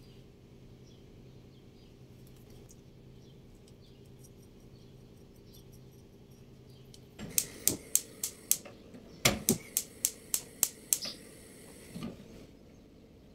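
Kitchen handling sounds: a faint steady hum, then from about seven seconds in a run of sharp clicks, about three a second, stopping near eleven seconds. A softer knock follows about a second later.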